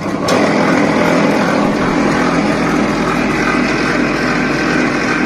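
B15 wire stripping machine running steadily with a motor hum, getting suddenly louder a moment in as it strips a coil of wire.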